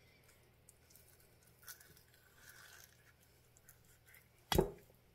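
Quiet handling while an avocado is prepared on a kitchen counter: a faint scrape about two and a half seconds in, then a single sharp knock near the end.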